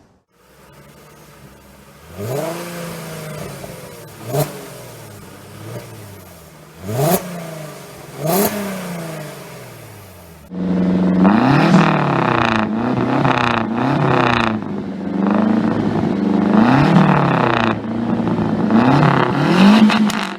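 Porsche 911 (993) racing cars' air-cooled flat-six engines. First several cars accelerate past one after another, each a rising note that swells and fades. About ten seconds in the sound changes abruptly to a louder, unbroken run of engine noise, its pitch repeatedly climbing and then dropping as the driver works through the gears.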